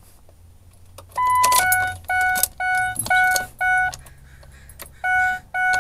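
Ford F-350 dashboard warning chime sounding as the ignition comes on: a short higher beep about a second in, then a run of evenly spaced dings about two a second, a brief pause, and two more dings near the end.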